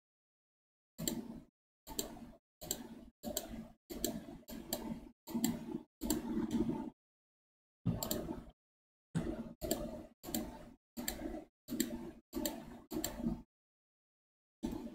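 A long series of short clicks at the computer while sculpting, each followed by a brief stretch of low hum that cuts off abruptly, with short pauses about seven and thirteen seconds in.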